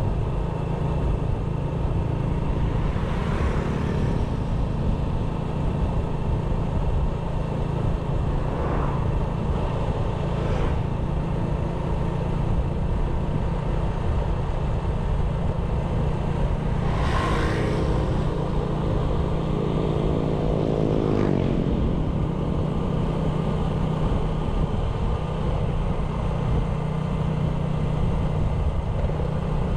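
97cc motorbike engine running steadily while riding, with a continuous low rumble. A few brief swells pass over it, and near the middle a pitched sound drops in pitch.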